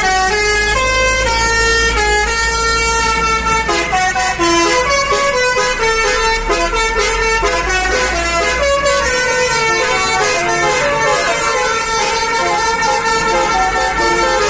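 Indonesian 'telolet' bus horn of the Basuri type playing a melody: several horn tones sounding together, stepping from note to note in quick succession, over a low rumble.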